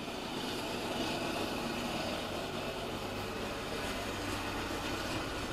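Norfolk Southern diesel freight locomotives passing at close range, a steady engine drone with wheel and rail noise that swells slightly just after the start, heard from inside a parked car.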